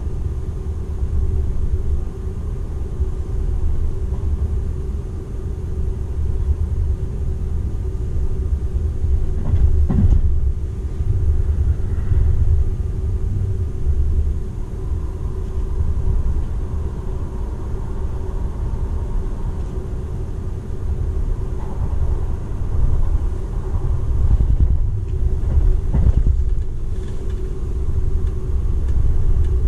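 Running noise inside the cabin of a Seibu 001 series Laview limited express train at speed: a steady low rumble of wheels on rail with a constant hum above it. Two sharp knocks come through, about ten seconds in and again near twenty-six seconds.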